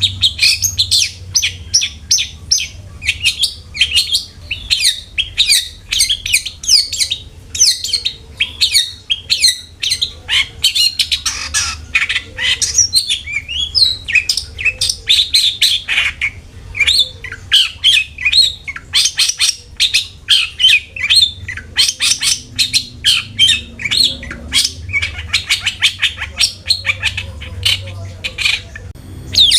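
Long-tailed shrike singing: a fast, unbroken run of sharp chirps and harsh squawks, over a faint steady low hum.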